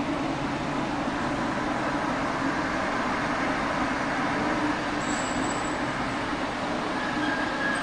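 DB double-deck regional train, pushed by its electric locomotive, running out of the platform: a steady rumble of wheels and traction motors, with a wheel squeal setting in near the end.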